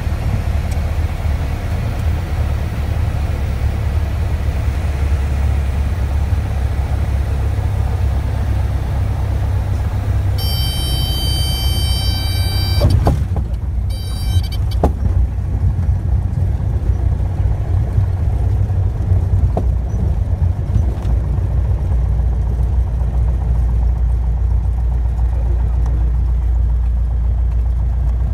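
Small aircraft's engine and propeller drone heard inside the cockpit during landing and rollout. A high steady cockpit warning tone sounds for about two seconds roughly midway, then once more briefly, with a couple of sharp clicks. The higher noise above the drone drops off about halfway as the plane slows.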